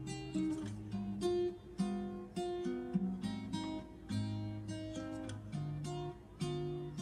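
Background music: acoustic guitar plucking a tune of single notes, about two a second.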